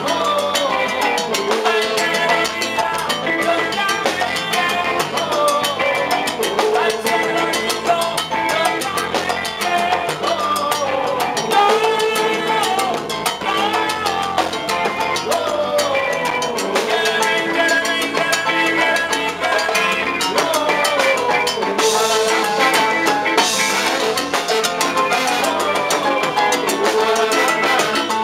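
Live salsa band playing, with congas and trombone over a steady Latin beat.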